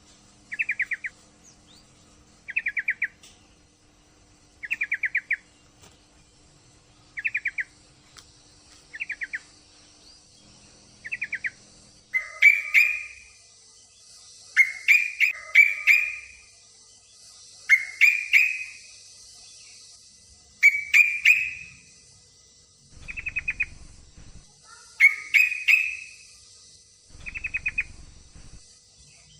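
Yellow-vented bulbul (trucukan) calling in short bursts of rapid chattering notes, one burst about every two seconds. From about halfway the bursts grow louder and fuller. The calls are offered as a female in breeding condition calling to a male.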